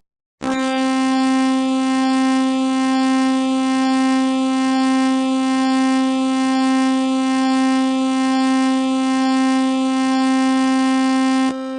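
Emergency alert signal: a single steady, horn-like tone held at one pitch for about eleven seconds, starting sharply about half a second in and dropping away near the end.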